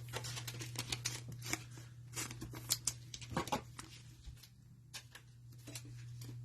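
Trading cards being handled and flipped through: a quick run of light clicks and rustles that thins out over the last couple of seconds, over a steady low hum.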